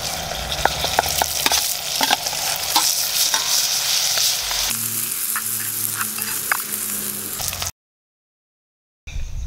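Mutton liver pieces sizzling as they fry in a metal pot with onions and green chillies, with scattered pops and crackles. The sizzle changes to a different, thinner texture about five seconds in, then cuts off to dead silence near the end.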